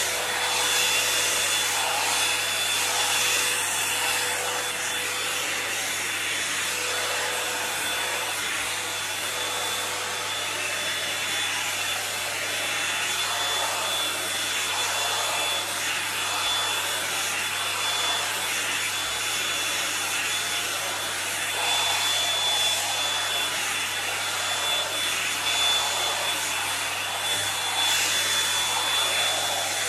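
Toni & Guy hot-air volumiser brush running steadily: a constant rush of blown air with a faint high whine from its motor, as it is worked through long hair.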